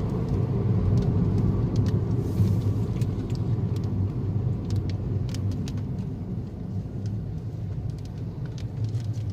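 Road vehicle driving, heard from inside: a steady low rumble of engine and tyres, with scattered sharp taps of rain hitting the vehicle during a storm.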